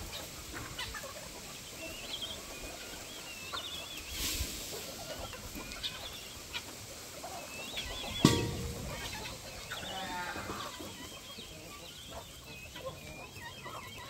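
A flock of free-range chickens clucking and chirping in short scattered calls. There is a sharp knock about eight seconds in and a brief rustle about four seconds in.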